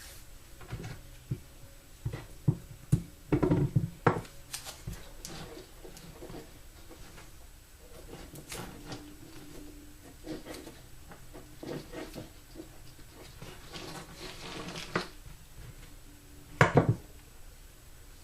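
Electrical tape being pulled off the roll and wrapped around a bundle of wiring-harness wires: irregular short crackles, with taps and knocks from the wires being handled, loudest about three seconds in and near the end.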